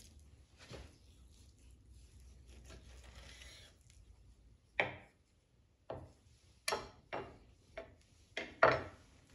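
A boning knife cutting between raw ribs on a wooden cutting board. Faint scraping of the blade through the meat comes first, then about seven short, sharp knocks on the board in the second half, the loudest near the middle and near the end.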